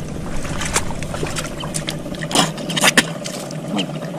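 Hands digging into a muddy crab hole among dry grass, rustling and crackling, with a few sharper crackles about two and a half to three seconds in.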